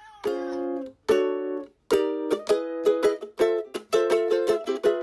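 Background music on a strummed string instrument: two held chords, then a run of quick rhythmic strums from about two seconds in.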